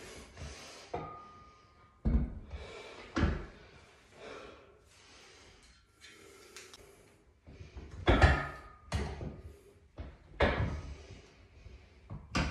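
Irregular heavy thumps and clunks from a plate-loaded leg machine, with quieter shuffling between them: two about two and three seconds in, then three more close together between eight and eleven seconds.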